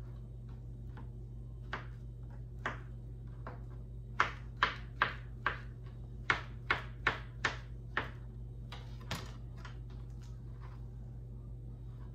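Kitchen knife slicing a banana on a plastic cutting board, the blade tapping the board with each cut. A few scattered taps come first, then a quick run of about ten sharp taps, over a low steady hum.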